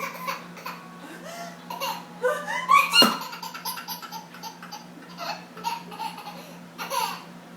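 Baby laughing in a string of short, rapid bursts, after a sharp sudden sound about three seconds in, over a steady low hum.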